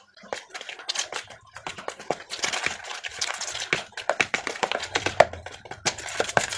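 A spoon stirring a thick, wet bait mix in a plastic bowl: quick, irregular scraping and clicking strokes against the bowl.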